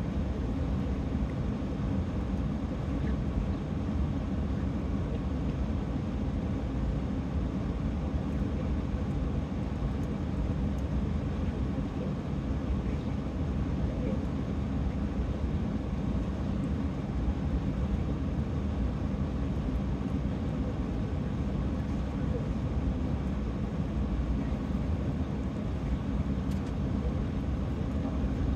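Truck engine idling, a steady low rumble heard from inside the cab.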